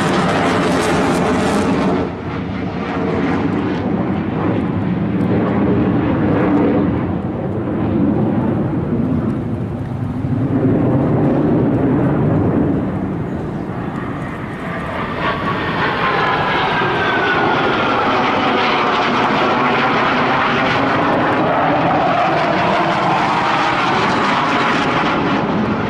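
Sukhoi Su-27/Su-30 fighter's twin AL-31F turbofan jet engines, loud and continuous as the jet flies past in a display pass. A deep, rumbling roar dominates the first half. In the second half a higher whine joins and slowly falls in pitch as the jet goes by.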